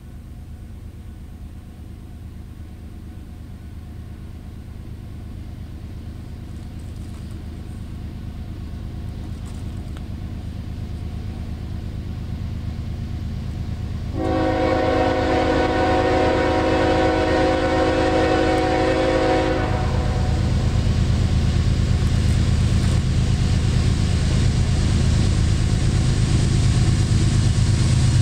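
CSX GE ES44AH diesel locomotive approaching, its low engine sound growing steadily louder. About halfway through, one long horn blast of several notes sounding together lasts about five seconds. After the horn the engine and rolling train are louder still as the locomotive draws near.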